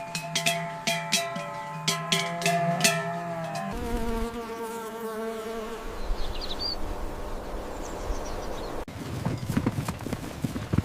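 Cowbells clanking with repeated strikes and ringing tones. Then, a little over a third of the way in, the sound changes abruptly to a buzzing insect, wavering in pitch over low outdoor noise.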